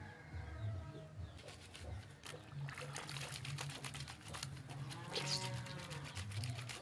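A bleating farm animal calls once about five seconds in, among scattered clicks and knocks and a low hum that comes and goes.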